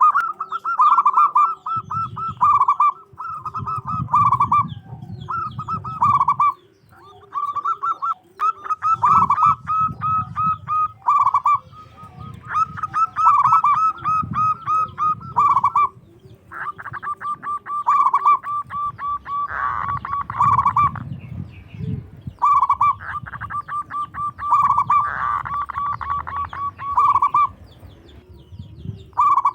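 Zebra dove (local perkutut) cooing in fast runs of short repeated notes, phrase after phrase with brief pauses between.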